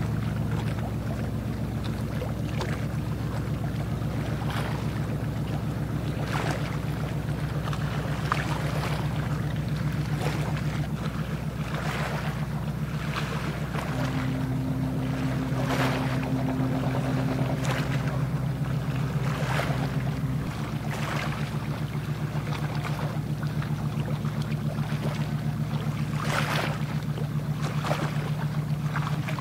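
A small boat's engine running steadily with a low, even drone, its pitch shifting slightly around the middle, while water splashes and slaps at intervals.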